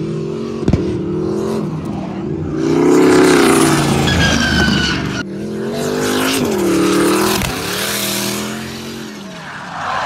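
Drift car's engine revving hard and rising and falling in pitch as the car slides sideways, its rear tyres spinning and squealing in a cloud of smoke. The sound swells twice, about three seconds in and again about seven seconds in.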